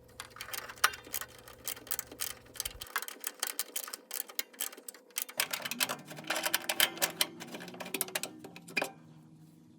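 Irregular clicking and ticking of a hand tool working on metal screws, in quick runs with short pauses, as the screws holding the exhaust pipe to the furnace's draft inducer fan are taken out. The clicking stops shortly before the end.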